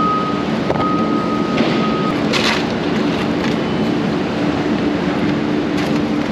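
A vehicle driving on the road, with steady engine and road noise and a low hum throughout. A thin, steady high whine sounds for the first two seconds.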